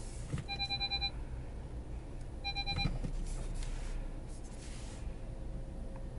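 Car parking-sensor warning beeps: two short bursts of rapid pips about two seconds apart, over the low, steady hum of the engine idling in the cabin.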